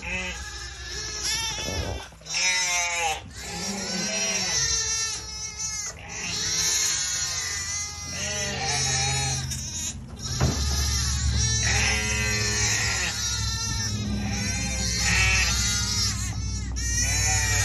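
Shetland sheep ewes and lambs bleating, many wavering calls overlapping one another, with a low steady rumble underneath from about halfway.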